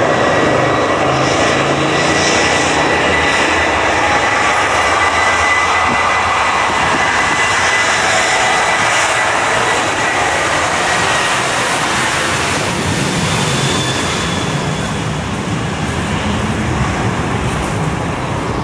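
An airliner's engines running loud and steady as it passes, with a thin steady whine over the noise, easing off a little toward the end.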